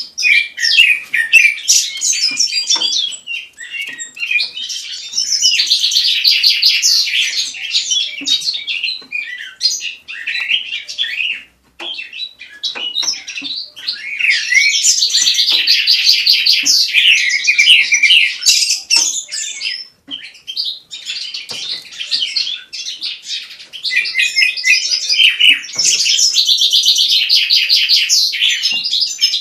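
A caged songbird singing long, fast warbling phrases with rapid trills, in four bouts separated by short pauses.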